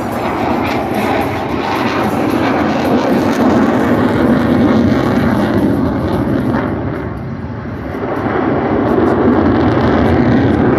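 Airplane engine noise from an aircraft flying past, a loud roar that swells, eases about seven seconds in, then swells again.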